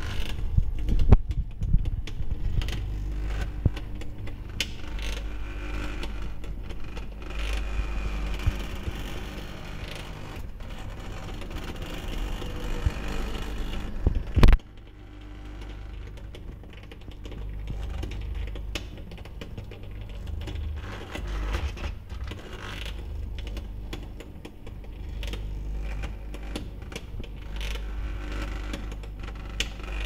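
Samsung WaterWall dishwasher's spray bar being driven along its track in a dry tub: a steady low hum with creaking and clicking from the drive mechanism. About halfway through there is one sharp click, after which it goes quieter.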